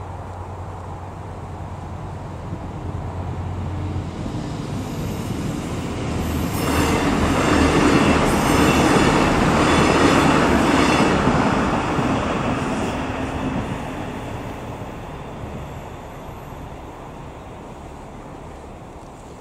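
Irish Rail 29000 class diesel multiple unit passing by. Its engines and wheels on the rails grow louder as it approaches, are loudest from about seven to eleven seconds in, then fade as it moves away.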